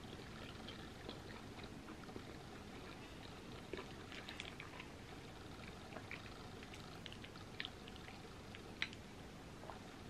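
Quiet eating sounds: a metal fork scooping macaroni and cheese from a bowl, and soft, wet chewing, heard as a scatter of small clicks and smacks over a faint hiss.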